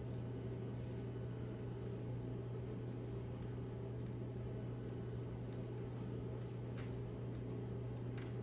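Steady low electrical hum in a small room, with a few faint soft rustles or taps near the end; no joint cracks stand out.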